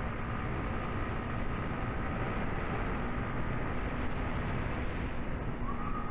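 Wind rush and the steady running of a Yamaha R15 V3 sport motorcycle's single-cylinder engine while cruising along a road, heard from the rider's camera.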